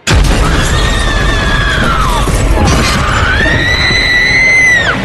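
A sudden, loud horror-film jump-scare blast of noise and deep rumble, with a woman screaming over it twice: a long scream that sinks away, then a second that rises, holds and breaks off near the end.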